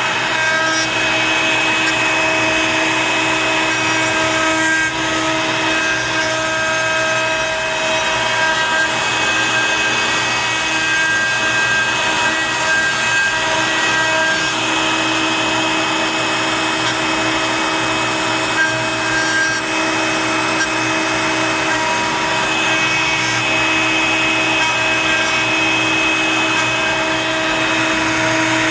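CNC router spindle running at steady high speed while its 60-degree V-bit carves a wooden plaque. It makes a loud, unbroken whine of several steady pitches over the hiss of the bit cutting wood.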